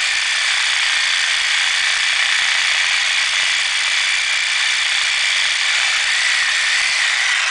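Reciprocating saw with a Lenox carbide-grit blade cutting through 4-inch cast iron drain pipe: a loud, steady grinding of the carbide grit against the iron.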